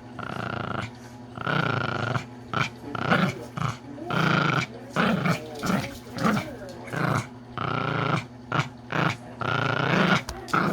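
Pomeranian snoring in its sleep: a rasping snore on each breath, coming in an uneven rhythm of about one or two snores a second.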